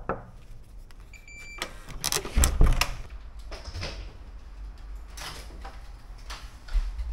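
Scattered knocks and clatter, with a short electronic beep a little over a second in and a heavy thump about two and a half seconds in.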